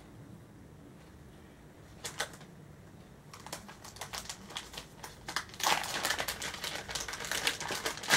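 Plastic packaging being handled and crinkled by hand as phone cases are unwrapped: a few clicks at first, then a dense run of rapid crackling and clicking that grows louder over the last few seconds.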